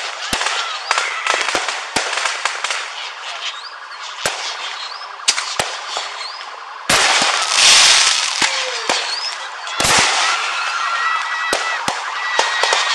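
Commercial aerial fireworks going off: a steady run of sharp bangs and crackling, with a few short rising whistles. The loudest part is a dense crackling burst lasting about a second, some seven seconds in, with another sharp burst about ten seconds in.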